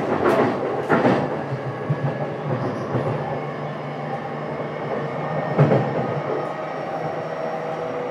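JR East E233-7000 series electric train running, heard from inside the motor car: a steady rolling rumble with a few wheel clacks over rail joints. A steady whine comes in near the end.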